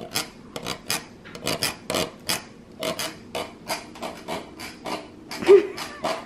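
A utensil scraping canned pumpkin puree out of a metal tin in quick repeated strokes, about three a second, to speed its slow slide out of the can. A short pitched sound stands out near the end.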